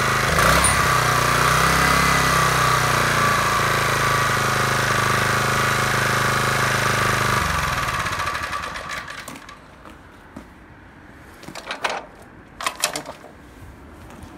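Small Mitsubishi GM82P petrol engine (2.4 PS) on a walk-behind tiller running steadily. It stops about seven and a half seconds in and runs down over a couple of seconds. A couple of brief clatters follow near the end.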